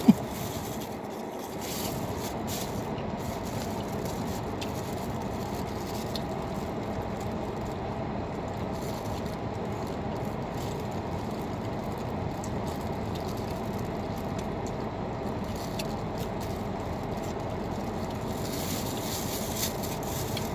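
Steady hum inside a car's cabin, typical of a parked car idling. Faint bites and chewing sounds come over it as corn on the cob is eaten.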